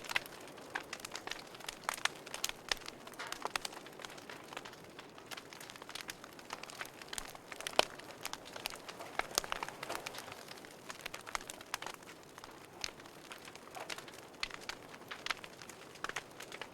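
Wood fire in a fireplace crackling, with irregular small pops and snaps over a soft steady hiss and one sharper pop about eight seconds in.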